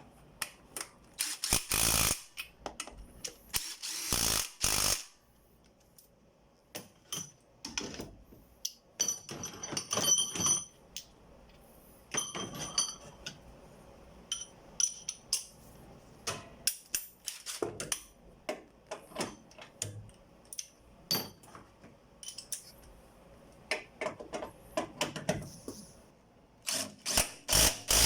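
18-volt DeWalt cordless impact wrench run in several short bursts, tightening the engine mount bolts, with lighter clicks, knocks and rattles of tools and metal parts between the bursts.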